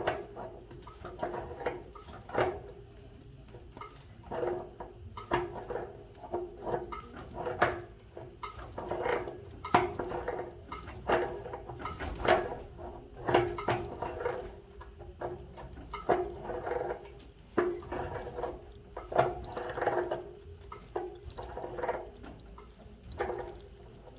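Irregular knocks and metallic clanks from hand-tool work on water heater plumbing, one or two a second, each with a short ringing tone.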